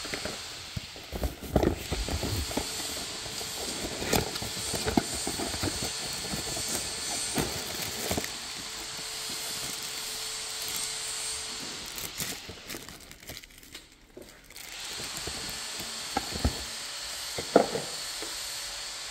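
Cardboard box, paper packing shred and a plastic bag rustling and crinkling as packaged parts are handled, with irregular taps and crackles over a steady hiss. The sounds drop away briefly about two-thirds of the way through, and a sharper tap comes near the end.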